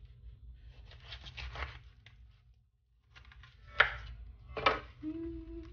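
Knife slicing through a ripe jackfruit's rind and flesh with a rasping, scraping sound, then two sharp knocks on the wooden cutting board about four and five seconds in. A brief low steady tone sounds near the end.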